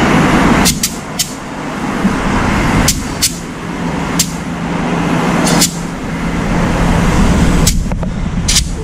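Compressed air hissing from a gauge-equipped tyre inflator into a scooter's soft front tyre, swelling and dropping in spurts, with several sharp clicks along the way.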